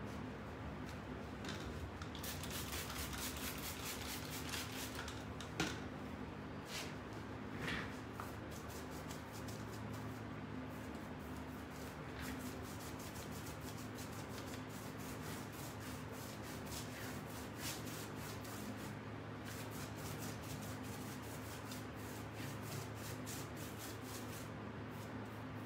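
A paintbrush scrubbing brown paint onto a cabinet side that is covered in glued, crumpled paper towel, in long runs of quick back-and-forth strokes. A single sharp knock about five and a half seconds in is the loudest sound, and a faint steady hum lies underneath.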